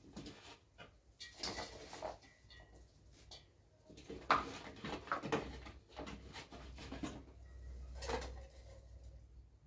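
Handfuls of chopped pickling vegetables being pushed and dropped into a large plastic jug: irregular soft knocks, rustles and rubbing against the plastic.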